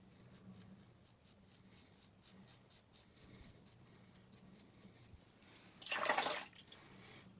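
Razor scraping through lathered stubble in a quick run of short strokes on a wet shave's against-the-grain pass. About six seconds in comes a brief, louder rush of water, like the razor being rinsed under a tap.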